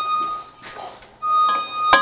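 Electronic beeper sounding a steady high tone about a second long, silent for about a second, then sounding again. A sharp click comes near the end.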